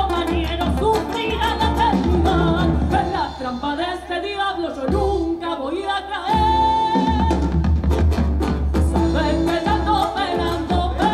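Folk song with a singer and instrumental backing over a steady bass; the bass drops away for about two seconds midway, then returns.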